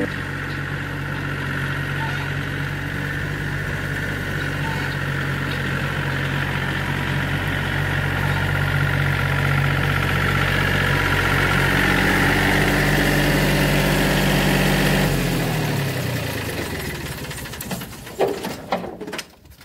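Small farm tractor's engine running steadily as it drives up, then slowing with falling pitch and stopping about fifteen seconds in. A few knocks follow near the end.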